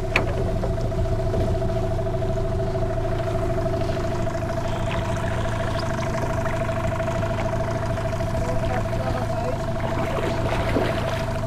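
Motorboat engine running at a steady speed, an even drone with a constant whine over a low hum.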